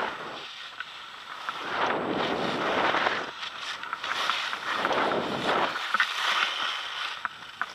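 Skis carving across groomed, packed snow in a series of turns, each turn a swelling hiss that fades again, with wind noise on the microphone. A few sharp clicks come near the end.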